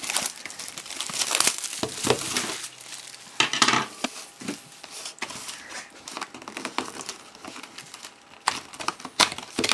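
Plastic wrapping and packaging crinkling and crackling as a trading-card box is opened and handled, with irregular sharp crackles and a longer rustle a few seconds in.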